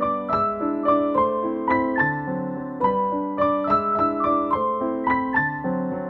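Background music played on piano: a melody of struck notes over chords, a new note every fraction of a second.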